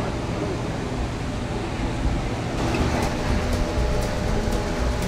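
Steady whir and hum of the barn's ventilation fans over general barn din. About halfway through the background changes and a string of light ticks comes in.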